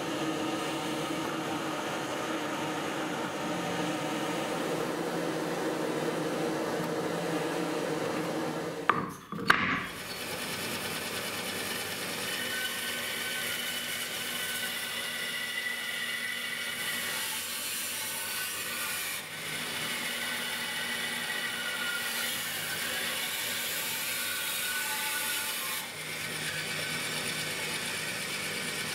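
A drill press spinning a Forstner bit as it bores into wood for the first nine seconds. A couple of knocks follow, then a bandsaw runs and cuts through the board, a steady higher-pitched whine.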